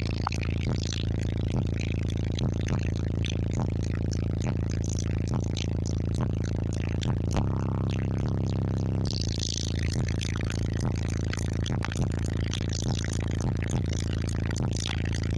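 Bass-heavy music played loud through two Resilient Sounds Team 15-inch subwoofers driven by a Taramps Bass 15k amplifier. The deep bass stays strong and steady throughout, with sharp, frequent beat hits above it.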